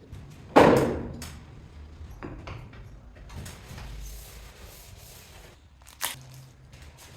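Two sharp knocks: a loud one about half a second in that dies away over about half a second, and a lighter one about six seconds in, with faint small clicks between.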